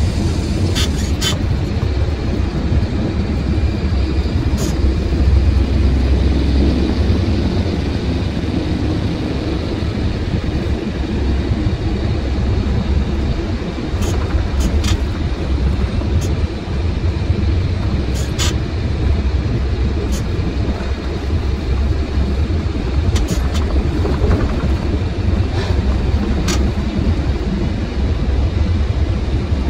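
Truck engine and road noise inside the cab while driving, a steady low rumble, with a few sharp clicks or rattles scattered through.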